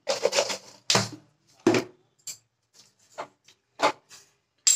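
A hand turning and pressing wet leafy greens in an aluminium pot, heard as a string of short, separate rustles and light knocks. The loudest comes near the end.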